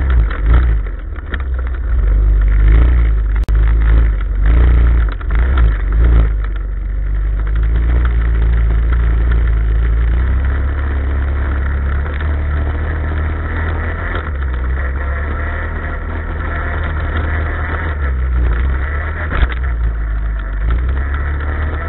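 Off-road motorcycle engine running as it is ridden over a dirt track, under heavy wind rumble and jolts on the onboard camera's microphone. The first few seconds are choppy and uneven, then the engine note steadies.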